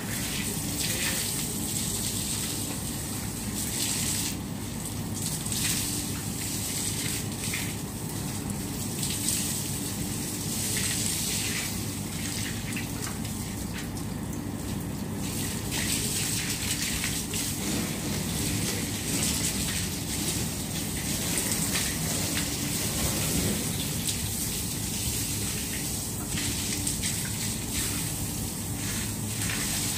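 Water gushing steadily from a garden hose as it is sprayed around, with uneven splashing.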